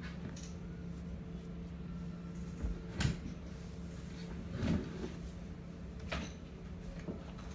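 A few short knocks and thumps over a steady low hum, the sharpest about three seconds in and a duller one near five seconds.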